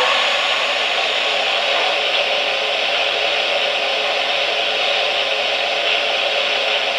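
Steady hiss of let-off steam from the sound system of a Lionel Hiawatha O-gauge model steam locomotive standing still.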